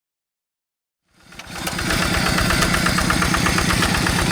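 Diesel engine of a two-wheel hand tractor running steadily with a fast, even chugging beat, fading in about a second in.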